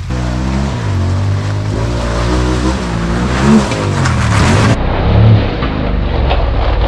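Honda Talon 1000 side-by-side's parallel-twin engine under way, its note rising and falling as the throttle comes on and off. The sound changes abruptly about two-thirds of the way through.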